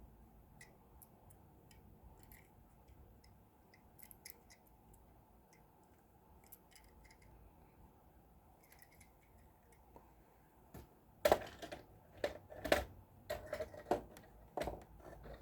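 Toy cars being handled: faint small plastic clicks and taps at first, then a run of louder clacks and knocks over the last few seconds.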